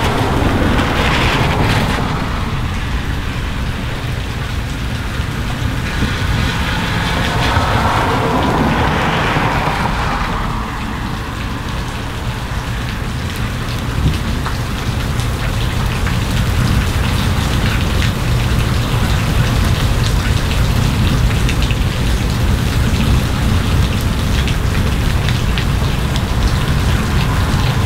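Steady heavy rain falling on a street, with a car's tyres hissing on the wet road as it passes at the start. A similar swell of hiss rises and fades about eight to ten seconds in.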